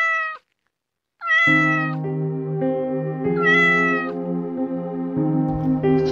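Domestic cat meowing three times, each meow a short call that rises and then falls in pitch. Background music comes in about a second and a half in, during the second meow, and continues under the third.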